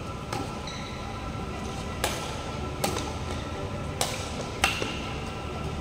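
Badminton rackets striking a shuttlecock in a rally: about five short, sharp cracks a second or so apart, over a steady low hum.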